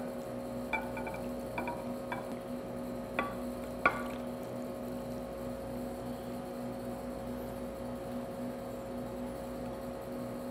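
Metal wire whisk clinking against a saucepan and a ceramic casserole dish as thick cheese sauce is poured and spread: about six light ringing clinks in the first four seconds, the loudest near four seconds in, over a steady hum.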